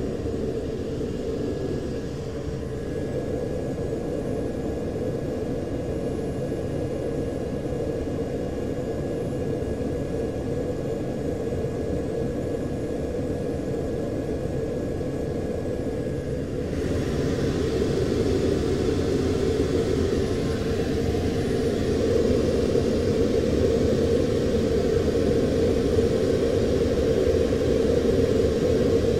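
Steady rumble of a U-2 reconnaissance plane in flight, heard from inside the cockpit: its F118 turbofan engine and the airflow over the canopy. A little past halfway a faint steady high tone cuts out, and the noise turns brighter and slightly louder.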